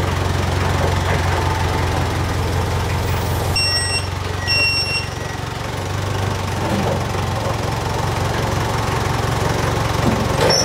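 An engine running steadily at idle, a low even hum. About four seconds in come two short, high electronic beeps, each about half a second long.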